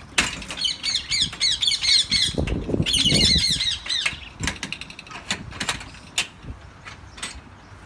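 Caged birds calling in quick, repeated chirping notes for the first four seconds or so, among scattered sharp clicks and knocks.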